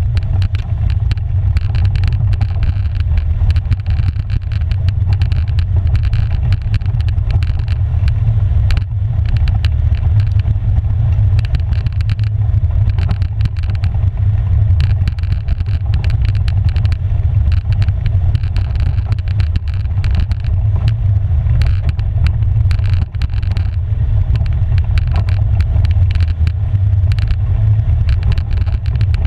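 Polaris 570 EPS ATV's single-cylinder engine running steadily while riding a rocky dirt trail. A heavy low rumble with frequent clicks and rattles throughout.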